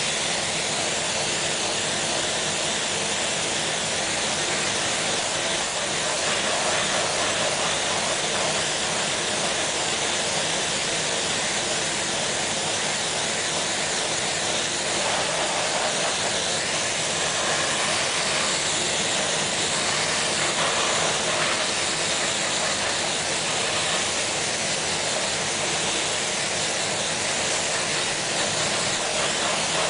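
Steady spraying hiss of spray-on chrome equipment, running without a break at an even level.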